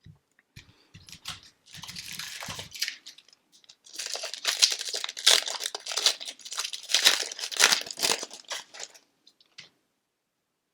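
Hockey card pack wrapper being torn open and crinkled in the hands: soft rustles at first, then a few seconds of dense crinkling that stops near the end.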